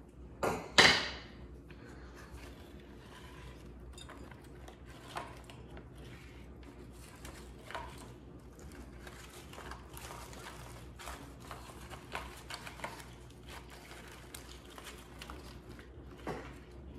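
A sharp knock about a second in, then faint rustling and light clicks of artificial greenery and flowers being handled and tucked into a decorative lantern.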